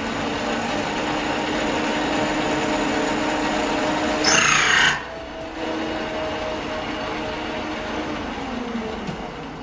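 Bernardo metal lathe turning steel, its spindle and motor running with a steady hum as the tool cuts. About four seconds in there is a brief loud high screech of about half a second. Near the end the hum drops in pitch and fades as the spindle slows.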